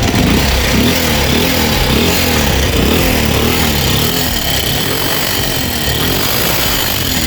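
Rhythmic sawing, about two strokes a second.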